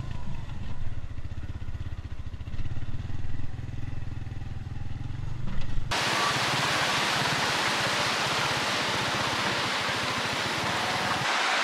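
A tricycle's motorcycle engine running with a fast, even pulse as it rides a rough dirt track. About six seconds in, it cuts to a river rushing over rapids: a steady, loud rush of water.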